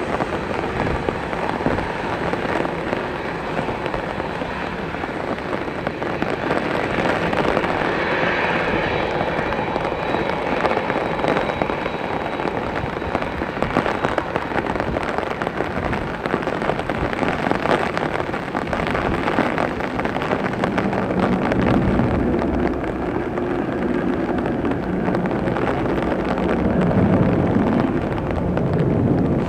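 Steady hiss and patter of rain, over the low hum of a Boeing 787 jet airliner's engines at taxi power; the engine hum grows in the second half as the aircraft rolls past.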